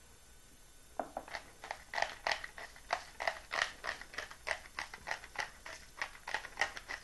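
Hand-twisted pepper mill grinding peppercorns: a run of short grinding strokes, about three a second, starting about a second in.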